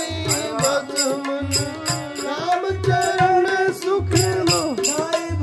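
Harmonium playing a devotional bhajan melody in held, gliding reed tones. A hand drum beats a steady rhythm with a low stroke about every second and a half, over a fast jingling percussion pattern.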